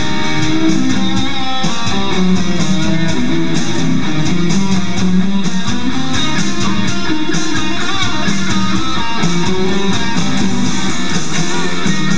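Fender Telecaster electric guitar played through an amplifier, a blues lead line with bent notes, over a backing jam track with bass.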